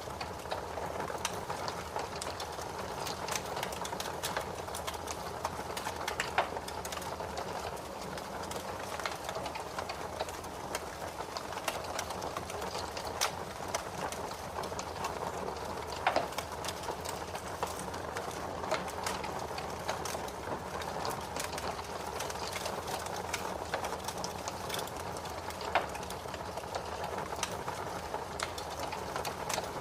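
Fire crackling in a fireplace: a steady hiss with many irregular small clicks and a few louder pops.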